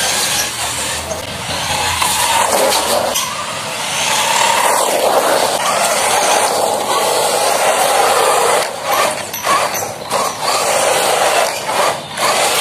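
A 1/12-scale electric RC buggy runs on wet asphalt: a steady, loud whirring hiss from its motor and gears and its tyres on the wet surface, swelling and dipping briefly several times as it slides and changes speed.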